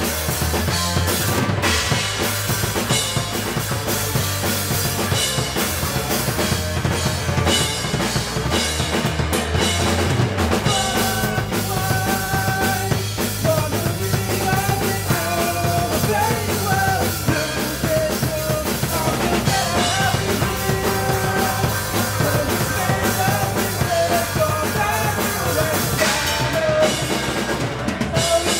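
Live rock band playing: a drum kit with kick and snare, electric guitar and bass guitar. A melodic line comes in on top about eleven seconds in.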